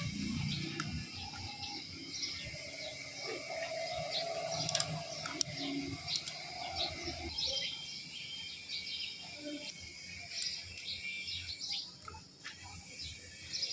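Small birds chirping over and over, with a few faint sharp clicks near the middle.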